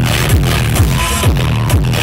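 Loud electronic dance music with a heavy bass kick about twice a second, each kick sliding down in pitch, played through a truck-mounted stack of speaker cabinets during a sound check.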